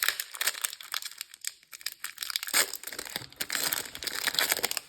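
Crinkly packaging being handled, with dense crackling in two spells and a short lull about two seconds in.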